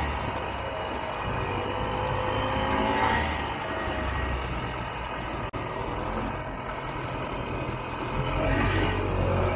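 Vintage Ski-Doo snowmobile's two-stroke engine running as the sled rides through deep snow, its pitch rising and falling with the throttle. The sound cuts out for an instant about halfway through.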